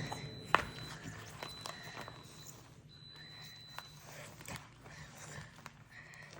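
Chalk being crushed: scattered sharp cracks and taps, the loudest about half a second in, thinning out later. A faint steady high whine runs under the first four seconds.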